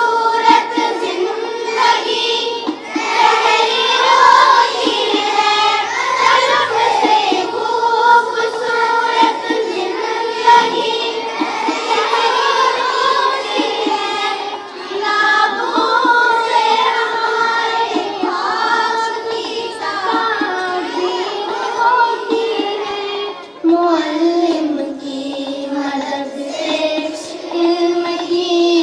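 A group of children singing a song together in unison.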